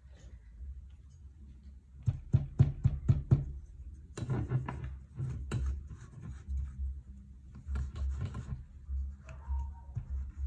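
Metal slotted masher pressed down into kinetic sand packed in a wire-mesh metal basket: a quick run of about six knocks about two seconds in, then more irregular knocks and crunching of the packed sand.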